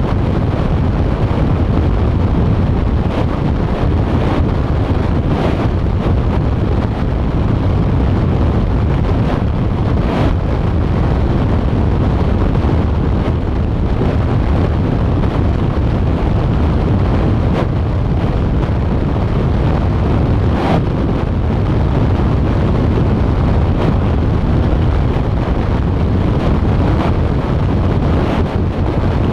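Wind buffeting the microphone of a camera mounted on a moving vehicle, mixed with the vehicle's road and tyre noise: a loud, steady, low rush.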